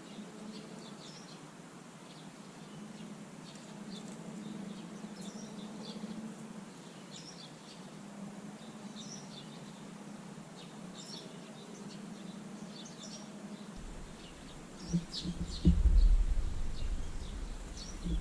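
Small garden birds giving short, high chirps scattered throughout. About three-quarters of the way in, loud low thumps and rumbling set in and drown out everything else.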